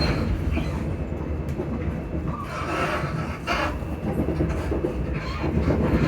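Class 334 electric multiple unit running, its traction motors humming over a steady rumble, with a few louder knocks from the wheels on the rails.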